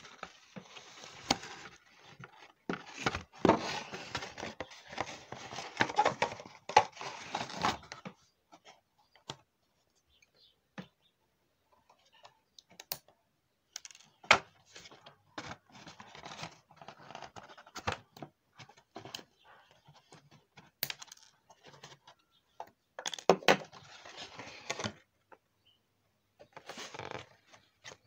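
Packaging of a boxed fashion doll being handled: rustling and scraping of the cardboard box and insert with sharp clicks, in bursts separated by quieter pauses. The longest burst comes first; shorter ones follow in the middle and near the end.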